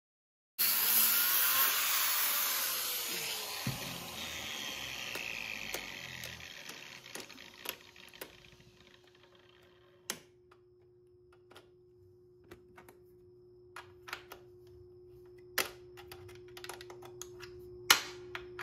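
Angle grinder with a cut-off wheel cutting through a steel-bolted engine mount, then released and spinning down, fading over several seconds. Afterwards scattered light metallic clicks and taps as the cut mount is worked at by hand, with a few sharper knocks near the end.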